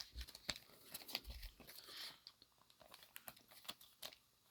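Faint clicks and rustles of trading cards being handled and flipped one behind another.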